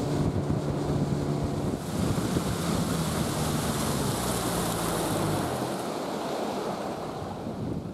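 Boat motor running under way, a steady low hum under rushing wind and water. The engine hum drops away about five seconds in, leaving the wind and water noise.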